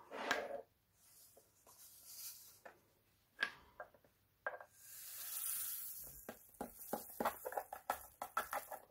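Tiny resin diamond-painting drills being tipped from a plastic tray back into a small container. A soft rustling swell gives way to a faint patter of many small clicks in the last few seconds.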